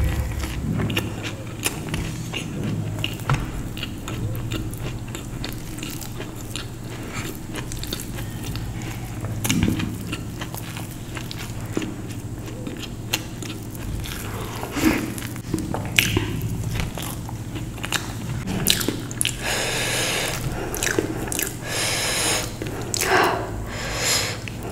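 A person biting and chewing food close to the microphone, with many short crisp crunches and mouth clicks.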